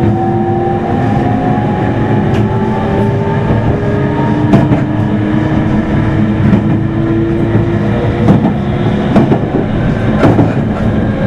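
Meitetsu 3100 series electric train heard aboard motor car Mo3212: traction motor whine in several tones slowly rising in pitch over a steady running rumble, with sharp wheel clacks over rail joints now and then.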